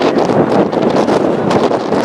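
Loud wind buffeting the microphone, a dense, rumbling rush that flutters without a break.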